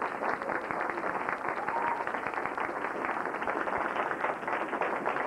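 Audience applauding, a steady dense patter of many hands clapping.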